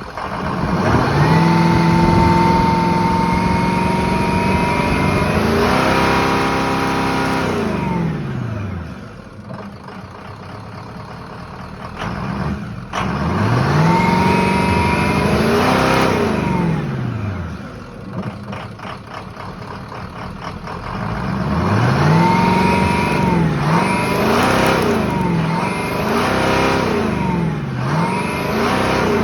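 Car engine revved from idle: held high for several seconds, dropped back to idle, revved again, then given a quick run of about four blips near the end. The engine belongs to a 2004 vehicle with a rough idle and no power on take-off, being revved during a fuel pressure test.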